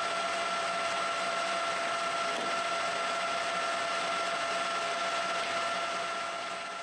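Colchester 1800 manual lathe running with its chuck spinning: a steady motor and gearbox whine that fades out near the end.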